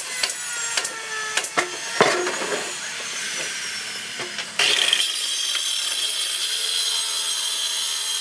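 Thick wooden planks knocking and clattering as they are handled, then about four and a half seconds in a hand-held circular saw starts cutting through a thick wooden board, a loud steady whine with a high ringing tone.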